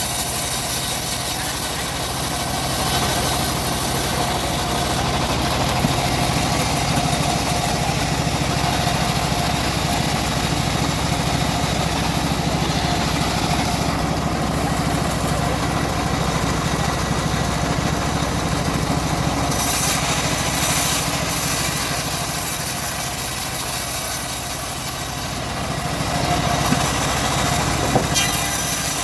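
Engine-driven homemade bandsaw mill running steadily while sawing a teak log, with brief bursts of high hiss about twenty seconds in and again near the end.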